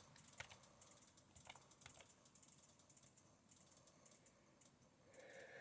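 Near silence with a few faint, scattered clicks of typing on a computer keyboard.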